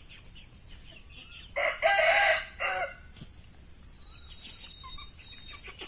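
Rooster crowing once, about one and a half seconds in: a single crow in three parts, a short opening note, a long middle note and a short closing note.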